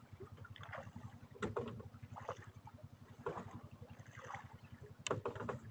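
Small fishing boat's motor running steadily with a fast, even low pulse while trolling. A few sharp knocks sound over it, about one and a half seconds in and again near the end.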